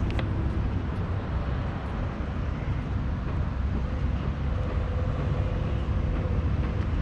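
Steady low rumble of outdoor background noise, with a faint steady hum joining about four seconds in.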